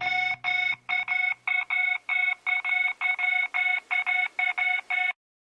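End of a song: a fast run of electronic beeping tones, about three or four a second in uneven groups, while the low backing fades away. The beeps cut off suddenly near the end.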